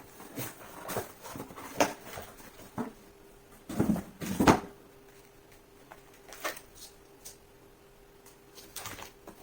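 Scattered knocks and rustles of a 3D-printer filament spool being handled and unpacked from its packaging, loudest about four seconds in.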